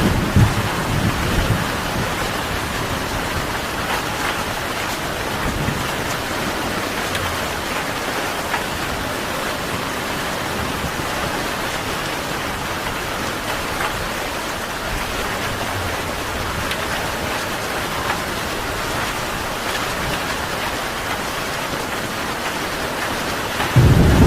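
Steady rain falling, an even hiss. A low rumble of thunder dies away in the first second or so, and a louder rumble of thunder breaks in near the end.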